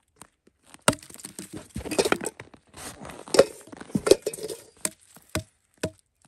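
An irregular run of sharp knocks, several with a brief ringing tone after them, between crunching, scraping noises.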